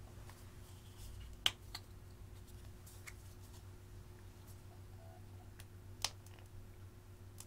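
A few small plastic clicks and taps as a makeup squeeze tube with a flip cap and a silicone spatula are handled, two sharper clicks standing out about a second and a half in and about six seconds in. A faint steady hum lies underneath.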